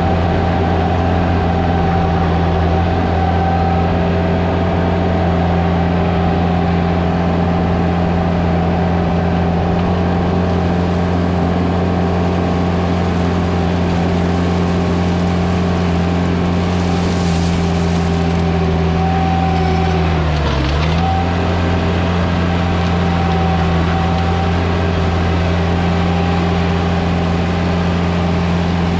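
Skid loader engine running at a steady speed, with its pitch dipping briefly about twenty seconds in and then recovering.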